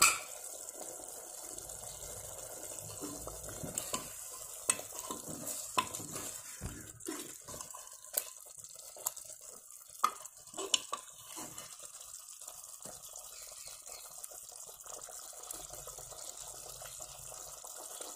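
Steel ladle stirring mutton curry in an aluminium pressure cooker, with scattered clinks and scrapes against the pot up to about two-thirds of the way in, over a faint steady sizzle of the meat and masala frying.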